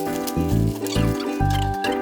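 Background music: an instrumental track with a moving bass line under sustained melody notes.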